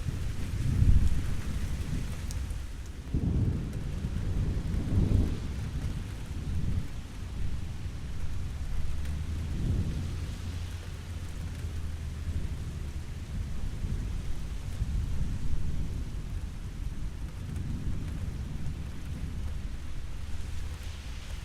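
Steady rain falling, with low thunder rumbles rolling in again and again; the loudest comes about a second in, with another long rumble between three and five seconds in.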